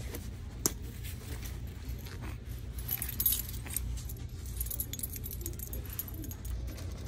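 Keys jangling on a keyring in short bursts, with a sharp click about half a second in, over a steady low hum.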